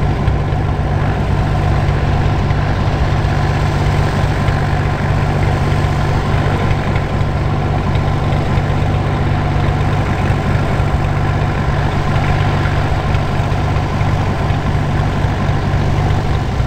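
Van's RV-7 light aircraft's piston engine and propeller running steadily.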